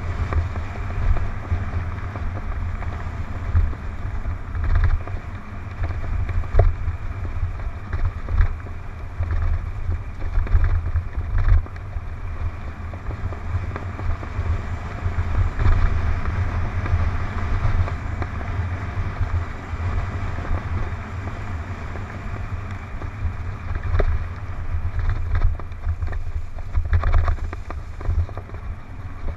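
Wind buffeting the microphone of a helmet-mounted camera on a fast mountain-bike descent, with the bike rattling over a rough dirt trail. The rumble rises and falls unevenly, and there are a few sharp knocks from bumps.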